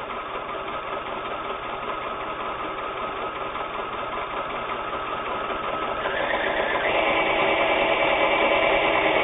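Pfaff Tiptronic 1171 electronic sewing machine stitching, its built-in walking foot feeding the fabric from above. It runs steadily, then louder and higher-pitched from about six seconds in.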